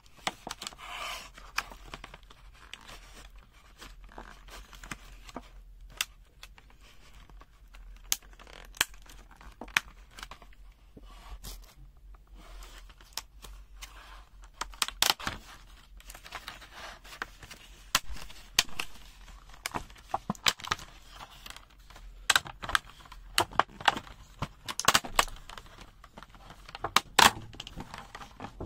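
Clear plastic blister packaging and its card backing being pried and peeled apart by hand: irregular crackles, scrapes and sharp clicks of the stiff plastic, busiest in the second half.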